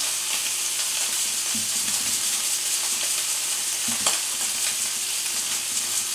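Beef short ribs searing in butter in a cast-iron skillet on high heat: a steady, hissing sizzle. A light knock comes about four seconds in.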